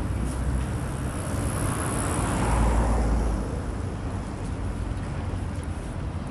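Street traffic with a car passing, swelling to its loudest about two and a half seconds in and then fading, over a steady low rumble.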